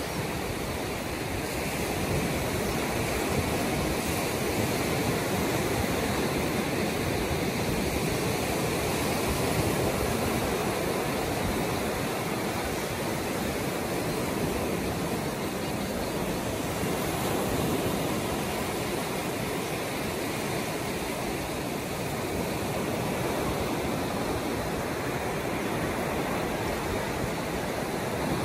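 Small ocean waves breaking and washing up onto a sandy beach: a steady rush of surf that swells and eases gently.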